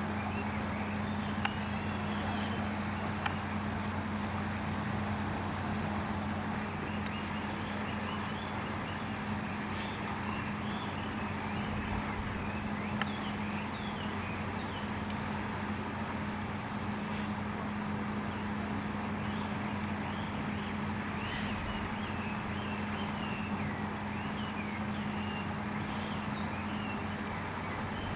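Outdoor ambience: a steady low hum with many small birds chirping on and off throughout.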